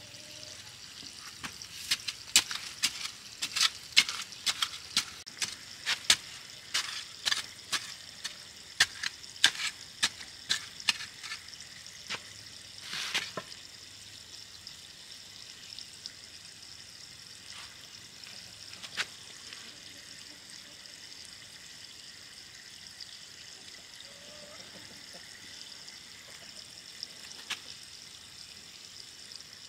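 Crisp clicks and crackling snaps of hands working soil and plants in a garden bed, many in quick succession for the first twelve seconds or so, then only now and then, over a steady faint high hiss.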